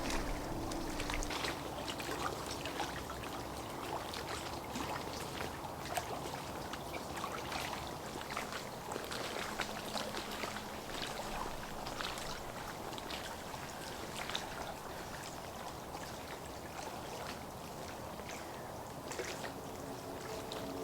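Water trickling and lapping, with many small irregular splashes and clicks.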